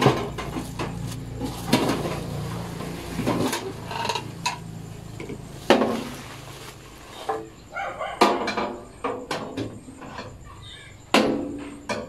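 A chrome wire oven rack, still in its plastic wrap, is handled and slid onto the rails of an electric oven. The sound is rustling plastic, metal clinks and several sharp knocks, the loudest about halfway through and near the end.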